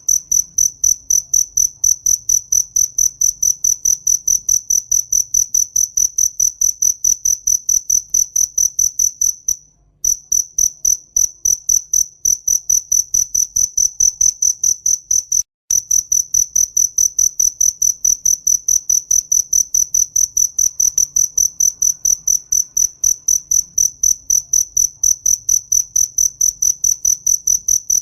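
A cricket chirping loudly in a steady, rapid rhythm of short, evenly spaced high-pitched pulses, breaking off briefly twice, about ten and fifteen seconds in.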